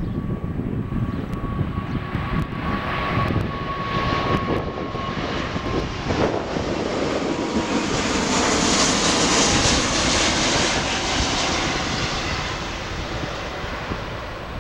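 Airbus A340-600 on final approach passing low overhead, its four Rolls-Royce Trent 500 engines at approach power. A jet rush swells to its loudest about nine seconds in and then fades, with a thin steady whine over the first five seconds.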